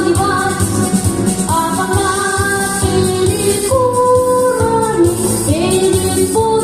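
A woman singing a song over a backing track with a steady beat, holding long notes.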